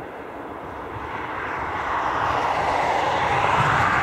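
Steady rushing vehicle noise with a low rumble beneath, swelling over a few seconds to its loudest near the end, then easing.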